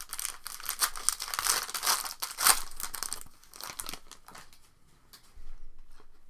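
Trading card pack wrapper being torn and crinkled open for about three seconds, followed by lighter clicks and snaps as the cards are handled.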